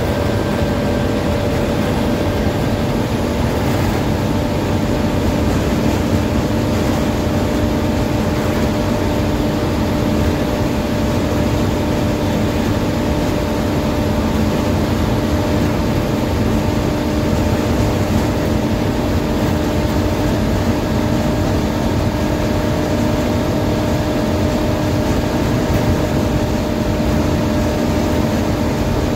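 KSRTC deluxe air bus underway on the road: a steady engine drone and road noise with a few constant hum tones, unchanged in pace throughout.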